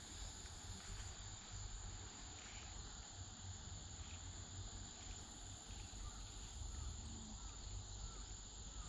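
Faint outdoor ambience: a steady high-pitched insect trill, a few small chirps, and a low rumble underneath.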